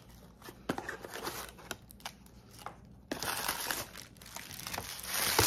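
Cardboard toy packaging handled with a few light clicks and rustles, then from about three seconds in, tissue-paper wrapping crinkling steadily and growing louder as it is pulled out and crumpled.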